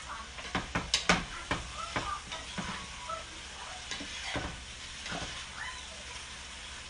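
Mixed vegetables sizzling in a hot pan while being stirred, the stirring utensil scraping and clacking against the pan, with a quick run of sharp knocks about a second in.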